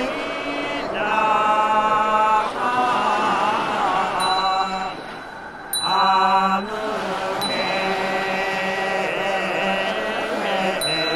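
Goeika, a Japanese Buddhist pilgrim hymn, chanted in long held, slowly wavering notes, with a short lull about five seconds in.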